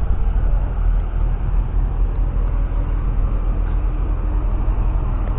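JCB Fastrac 4220 tractor's 6.6-litre six-cylinder diesel engine running steadily under load, a continuous low rumble.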